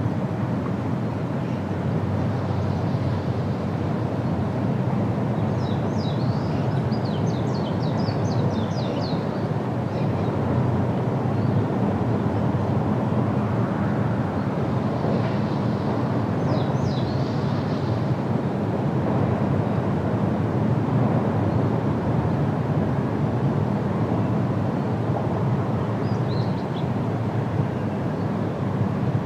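Steady low outdoor rumble, with small birds chirping in short trilled bursts three times.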